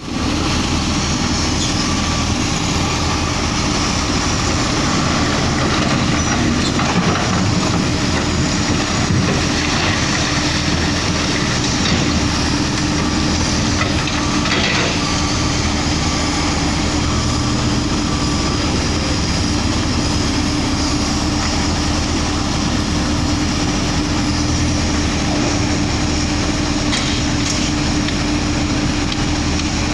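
Hino Ranger dump truck's diesel engine running steadily under load, a constant low rumble with a droning hum over it and a few faint knocks.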